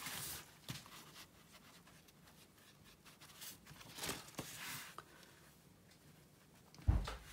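Hands handling a sketchbook of rough cotton rag watercolour paper: the paper rustles and the book scrapes as it is slid across the table, with one soft thump near the end.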